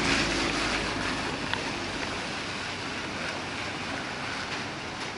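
Steady hiss of a rain-wet street with traffic. It is louder at the start as a vehicle goes by, then eases off.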